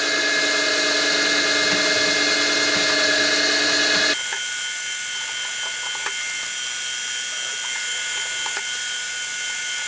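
Optimum MB4 mill-drill spindle running with a steady whine while a 2.1 mm drill bores small holes in a bearing-block casting. About four seconds in, the tone changes abruptly: the lower hum drops away and a higher whine is left.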